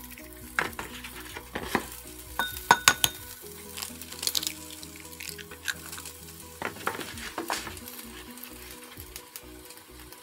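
Chopped vegetables sizzling in a frying pan, with sharp clicks and taps of eggshells being cracked on a bowl several times.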